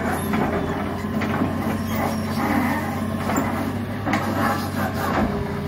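Diesel engine of a Hitachi tracked excavator running steadily, with irregular metallic clanks and knocks over it.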